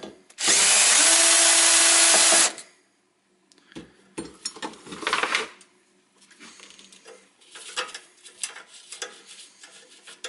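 Cordless drill-driver running steadily for about two seconds, backing out a screw that holds the metal support bracket to the ECU's steel case. A shorter noisy burst follows about four seconds in, then small clicks of the loose screws and metal parts being handled.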